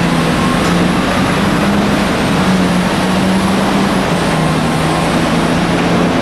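Komatsu HD785-7 haul truck's twelve-cylinder diesel engine running steadily as the truck drives past on gravel, with a faint high whine over the engine note.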